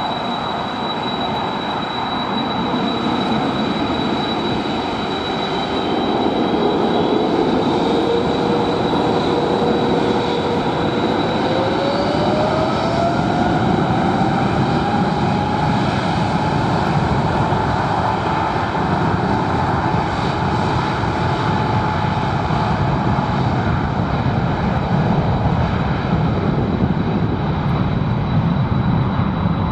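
Boeing 777-300ER's GE90-115B turbofan engines running at taxi power: a steady jet rumble with a constant high whine. About a fifth of the way through, a second whine rises in pitch and gets louder, then holds steady before fading out near the end.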